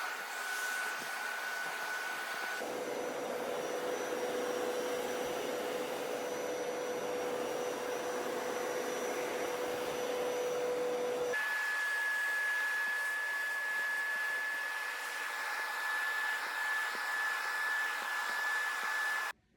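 Hoover PowerScrub Deluxe carpet cleaner running steadily, its motor and suction making a rushing noise with a whine. The whine jumps abruptly to a different pitch twice, and the sound cuts off suddenly near the end.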